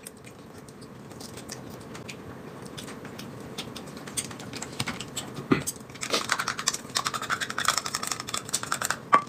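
Small clicks and scratches of eating at a table: chopsticks and chewing. About six seconds in, a denser run of scraping and clicking starts as chili sauce is scraped out of a small metal can onto a plate with chopsticks. It ends with one sharp clink.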